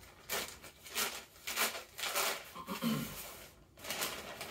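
Plastic and paper packaging rustling and crinkling in short, irregular bouts as a mail-order shipping bag is opened and its contents pulled out.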